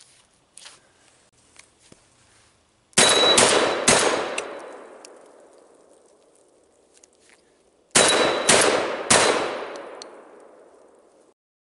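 Shotgun firing two quick strings of shots, the first about three seconds in and the second, three shots about half a second apart, about eight seconds in. Each string rolls away in a long echo.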